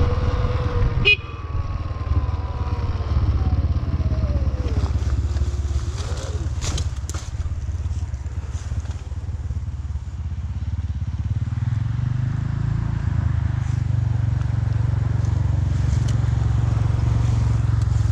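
A vehicle's motor running as it is ridden along a forest track under a steady low rumble. Its pitch falls over the first few seconds, a few sharp knocks come a little past the middle, and the rumble grows louder toward the end.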